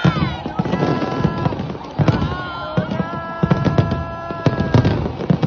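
Fireworks going off: a rapid string of bangs, thickest in the second half, over steady held tones and a noisy background.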